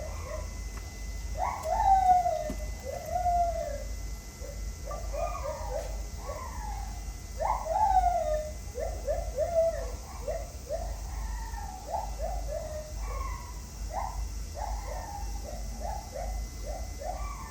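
A bird calling over and over in short rising-and-falling notes, coming faster, about two or three a second, in the second half.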